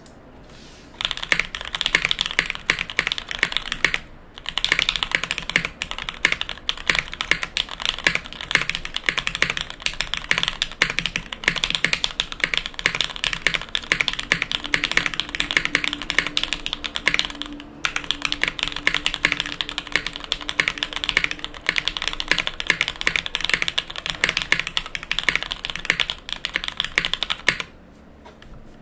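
Fast, continuous typing on a custom mechanical keyboard: lubed and filmed Diamond Polished Cherry MX Black linear switches in an O-ring-mounted aluminium plate, under GMK keycaps. The typing starts about a second in, pauses briefly twice and stops shortly before the end.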